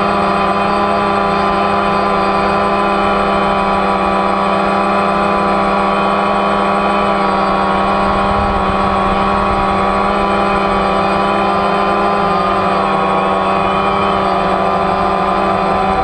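DJI Phantom quadcopter's electric motors and propellers running in a steady hover, heard up close from a camera mounted on the craft: a loud, even buzzing drone of several steady tones whose pitch wavers slightly as the motors hold position.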